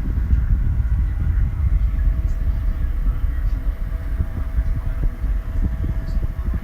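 O2cool battery-operated box fan running, its airflow buffeting the microphone as a steady low rumble, with a faint steady motor hum above it.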